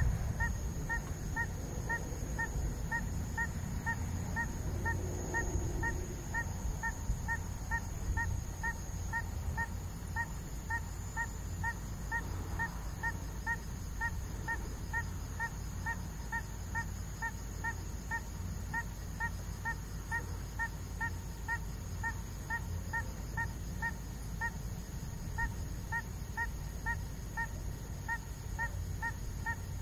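A night animal's short pitched call repeated very evenly, about twice a second, over a steady low rumble and a faint high steady whine.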